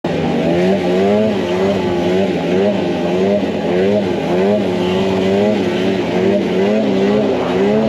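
Snowmobile engine running hard, its pitch rising and falling about once a second as the throttle is worked.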